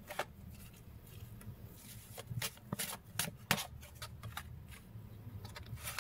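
A deck of oracle cards being handled and laid out: faint, irregularly spaced flicks and snaps of card against card, about a dozen over a few seconds.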